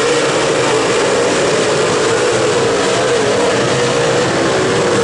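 Dirt late model race cars' V8 engines running hard at racing speed around the oval: a steady, loud drone that wavers slightly in pitch.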